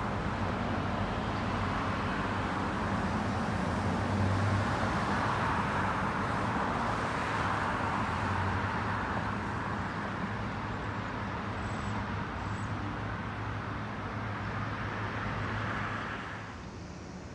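Road traffic at a busy intersection: cars passing in a continuous wash that swells as vehicles go by, over a low steady hum. The sound falls away near the end.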